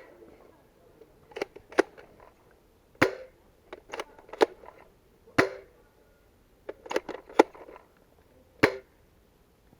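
Airsoft guns firing single shots: about a dozen sharp pops, irregularly spaced, some alone and some in quick clusters of two to four.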